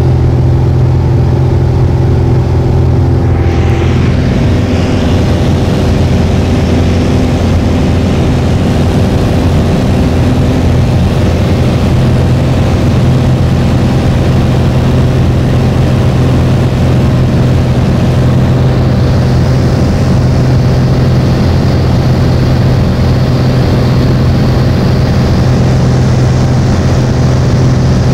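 Cabin drone of a Piper PA-28 Arrow in flight: its single piston engine and propeller running steadily and loud, with a slight shift in tone about four seconds in.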